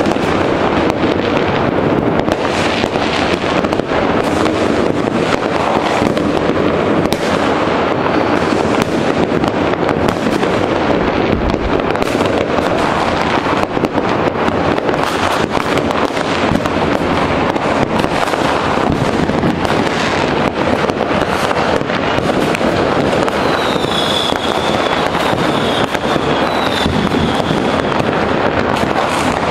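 New Year's Eve fireworks and firecrackers going off all around without a break, a dense, steady crackling and banging from many sources near and far. Near the end a high whistle slides down in pitch and holds for a few seconds over the bangs.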